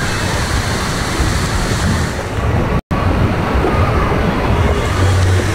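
Steady rushing noise of water spraying and splashing from a water-park play structure, with low rumbling underneath; the sound cuts out for an instant about three seconds in.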